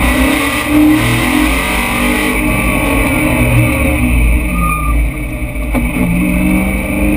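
BMW M3 race car's engine under hard acceleration, heard from inside the cabin. Its pitch drops about four and a half seconds in and then climbs again.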